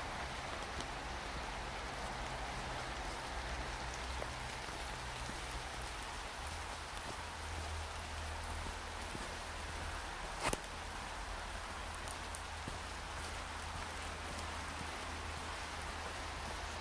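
Steady hissing wash of water, with a low rumble underneath and one sharp click about ten seconds in.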